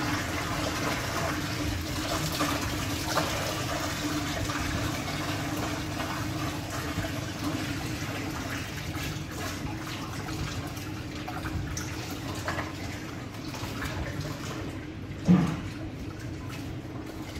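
Water poured from a plastic jug into a steel dough-mixer bowl, splashing steadily over a constant low hum, and fading out near the end. One loud thud comes about fifteen seconds in.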